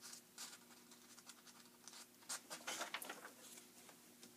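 Faint paper rustling and scraping as a large book's page is turned, busiest a little after two seconds in.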